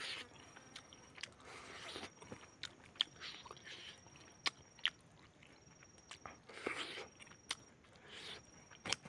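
Close-up eating sounds: a man biting and chewing cooked chicken, with soft crunching and scattered sharp mouth clicks.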